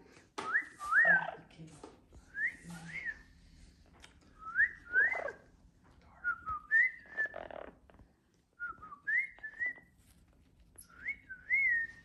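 Amazon parrot whistling a short two-note phrase, each note a quick rise and fall in pitch, repeated six times about every two seconds.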